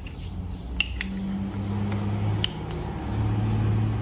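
A plastic phone clamp is handled and fitted onto a small tripod's ball head: about three sharp plastic clicks, the loudest about two and a half seconds in, with light handling rustle over a low steady hum.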